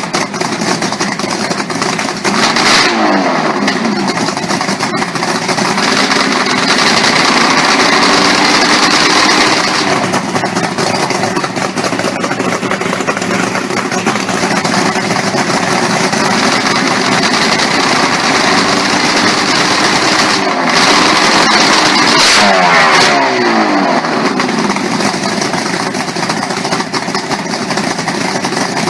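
V8 engine running and revving, its pitch rising and falling several times, with sharp changes about three seconds in and again around twenty to twenty-three seconds.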